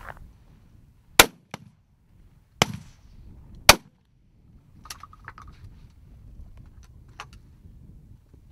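Three shotgun shots, the first about a second in, then about a second and a half and a second apart, each with a short echo. Fainter clicks and knocks follow.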